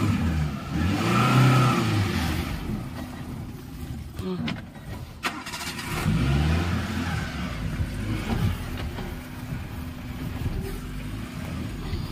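Maruti Suzuki Gypsy's petrol engine revving up and falling back as the 4x4 crawls over rocks, the revs swelling twice, about a second and a half in and again about six seconds in. A couple of sharp knocks come about halfway through.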